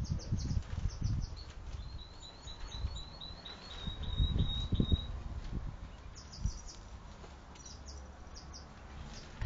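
Songbird chirping: a quick run of about ten short, high chirps, with scattered sharp high chips before and after. Low thumps and rustling come near the start and again midway.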